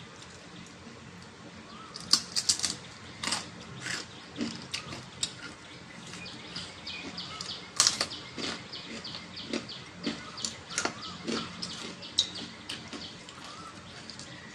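A crisp, hollow pani puri (fuchka) shell being bitten and chewed: an irregular run of sharp crunches and cracks, loudest about two seconds in and again near the middle.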